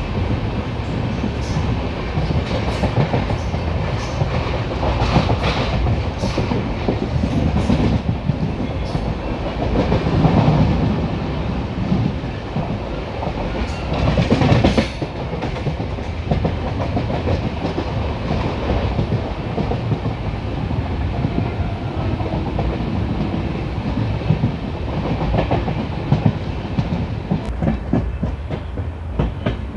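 Passenger train running, heard from an open coach doorway: wheels clattering steadily over rail joints, with a louder spell of clatter about halfway through.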